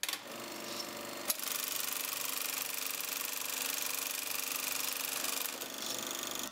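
Fast, steady mechanical clatter of a running film mechanism, with one sharp click about a second in.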